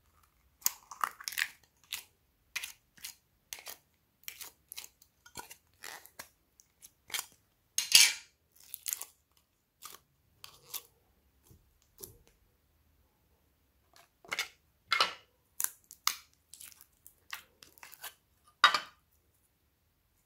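Homemade slime being squeezed out of a plastic tub and stretched by hand, making irregular sticky crackles and snaps with short quiet gaps between them. The loudest snaps come about 8, 15 and 19 seconds in.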